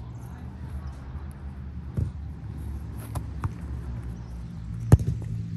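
Three sharp thuds of a football being struck, about a second and a half apart, the last the loudest, over a steady low rumble.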